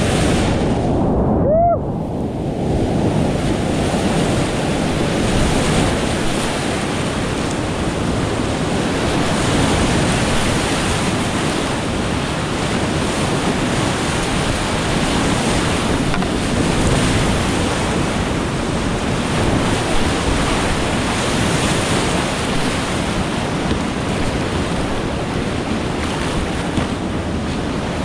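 Steady loud rush of whitewater on a steep creek. It is muffled for the first two seconds, with a brief short gliding tone, then opens up to a full, bright rush.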